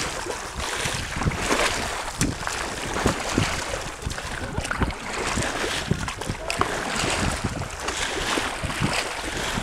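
Choppy lake water splashing and slapping against the hull of a moving boat, with irregular knocks and splashes, over wind rumbling on the microphone.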